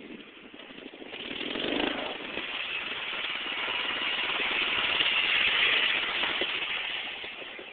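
Riding lawnmower engine driving past, growing louder for about four seconds and then fading away.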